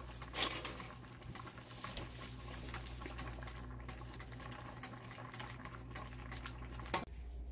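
Seafood boil of crawfish, corn and potatoes simmering in sauce in a pan on the stove: steady soft bubbling with many small pops, over a steady low hum.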